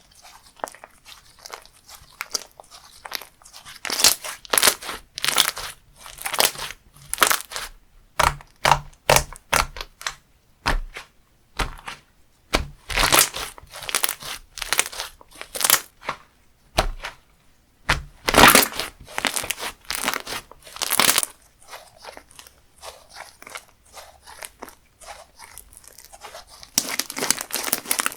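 Slime being squeezed and pressed by hand, giving irregular crunchy, crackling squishes about once or twice a second, loudest in the middle.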